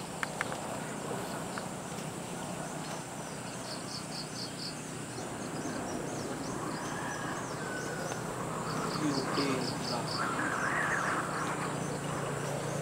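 Outdoor ambience of insects chirping: repeated quick runs of high, short chirps over a steady high-pitched buzz, with faint voices in the background during the second half.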